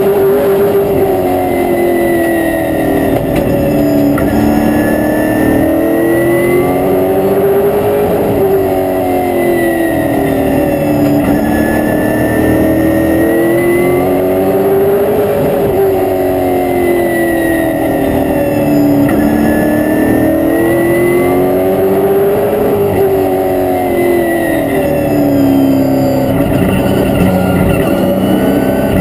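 A racing stock car's V8 engine, heard loud from inside the cockpit. Its pitch climbs along each straight and falls away into each turn as the car laps the oval, in a repeating cycle of about seven to eight seconds.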